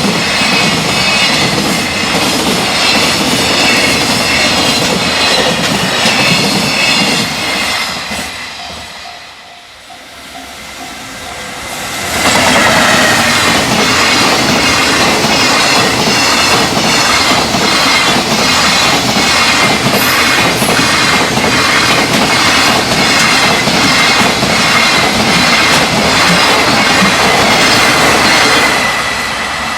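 Freight trains passing at high speed, their wheels clacking rapidly over the rail joints. The first pass fades away about eight seconds in. A second pass starts abruptly at about twelve seconds and runs loudly until it drops off near the end.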